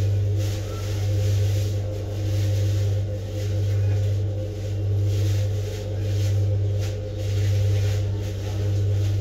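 Steady low machine hum, swelling and fading slowly and evenly, a little less than once a second.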